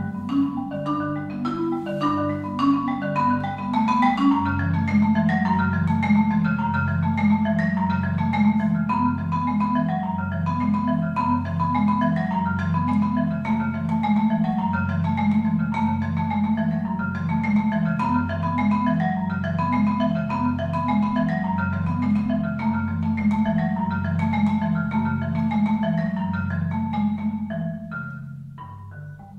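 Solo concert marimba played with mallets: a repeating low bass pattern runs under fast, rippling notes higher up. It gets quieter near the end.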